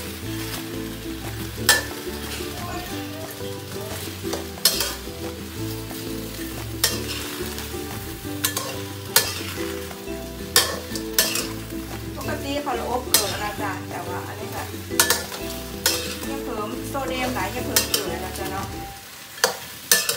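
Whole shrimp sizzling as they roast in a steel wok, turned over and over with tongs that clack and scrape against the pan many times. A faint tune plays underneath.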